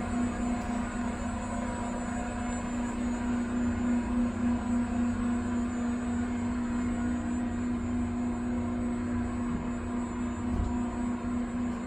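Residential elevator running as the car travels down between floors: a steady hum with one constant tone.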